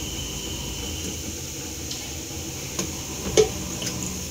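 Aluminium pressure cooker holding water and oil being tilted and swirled on a stone counter, giving a few light metal knocks, the loudest about three and a half seconds in, over a steady background hiss.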